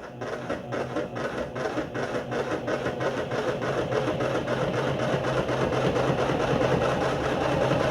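Electric honey extractor spinning up, its drum and frames making a rhythmic beat that comes faster and grows louder as it gathers speed.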